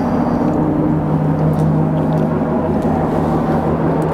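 A motor vehicle engine running steadily, a low even hum over a rumble of road traffic.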